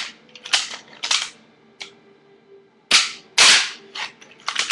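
A fingerboard clacking on a granite countertop as tricks are popped and landed: several sharp clacks, with a longer scraping rush about three seconds in.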